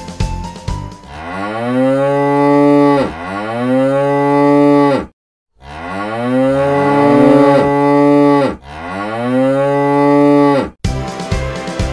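A cow mooing: four long moos in two pairs with a brief silent gap between the pairs, each moo falling away in pitch at its end.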